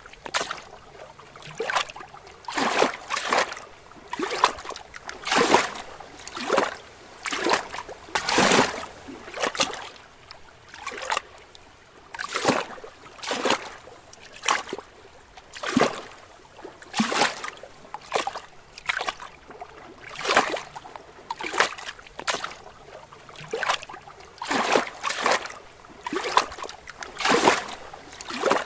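Small lake waves lapping against rocks: short, irregular splashes about once a second, each a quick wash of water.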